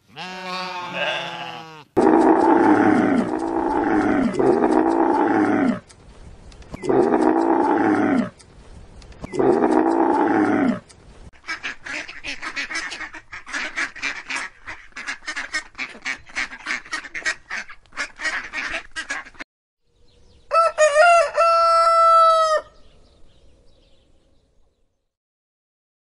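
Farmyard animal calls one after another. A lamb bleats at the start, and loud calls about a second long repeat several times. A long run of rapid short calls follows, and near the end a rooster crows for about two seconds.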